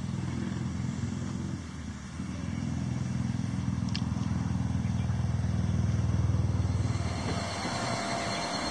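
A motor engine running steadily at a low, even pitch. It dips briefly about two seconds in, then grows louder.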